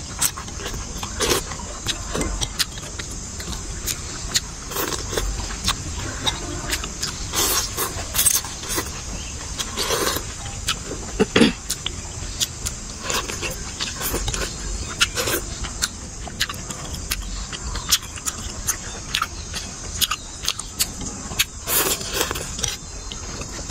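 A person eating noodle soup: repeated slurps of noodles, chewing, and small clicks of chopsticks and a spoon against the ceramic bowl.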